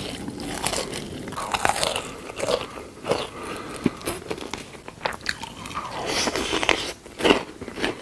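Close-miked chewing and biting of hamburger-shaped gummy candies: irregular bites and wet chews, with a denser run of bites near the end.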